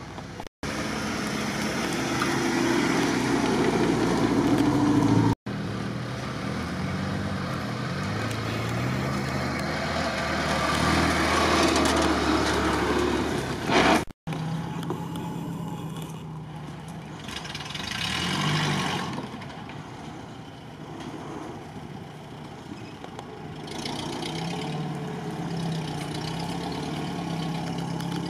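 Off-road 4x4 engines, including a Willys jeep and a UAZ, running and revving as they crawl along a rough track. The engine note rises and falls repeatedly. The sound drops out briefly three times where short clips are cut together.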